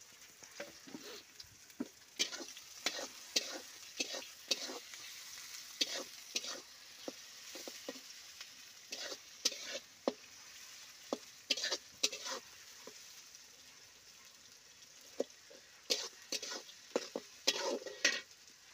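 Metal spatula stirring and scraping sliced onions frying in oil in a large kadai, a faint steady sizzle under runs of quick, irregular scrapes against the pan, with a short lull in the stirring about two-thirds through.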